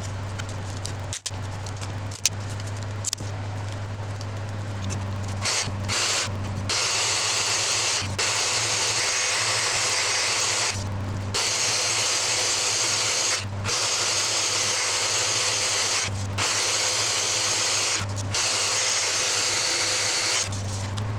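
Random orbital sander running against a segmented utile wood form, sanding its curved outside. The sander comes in about five seconds in and stops briefly several times. Before it starts there is a low steady hum with a few sharp clicks.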